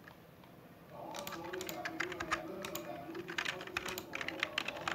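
Computer keyboard keys clicking in irregular taps, starting about a second in.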